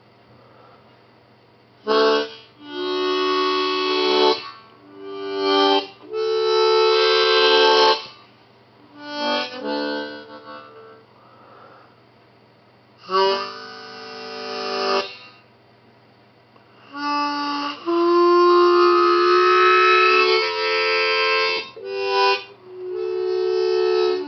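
Harmonica played in short phrases of held notes and chords, with pauses of a second or two between phrases.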